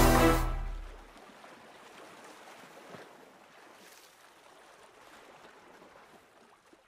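Distorted rock guitar music fading out over about the first second, leaving only a faint, even hiss.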